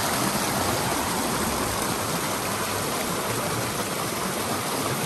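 A stream rushing and splashing over mossy rocks in a small cascade, making a steady, even rush of water.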